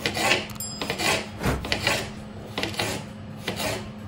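Kitchen knife slicing through a cucumber onto a plastic cutting board: repeated short rasping cuts at about two a second as it is cut lengthwise into thin slices.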